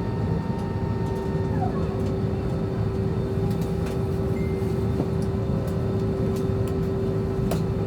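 Airbus A320 cabin noise after landing: a steady low rumble with a constant hum from the idling IAE V2500 engines. A higher whine bends down and stops about a second and a half in, and a few faint clicks come through.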